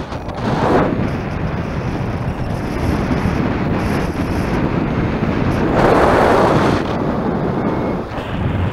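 Strong wind buffeting the camera's microphone in a steady rushing roar, with louder gusts about half a second in and again around six seconds in.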